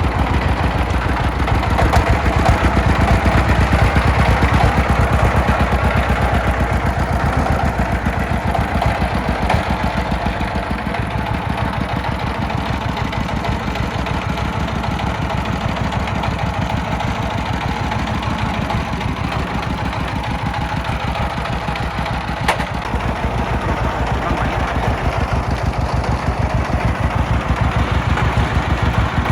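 Diesel engine running steadily with a fast, even beat.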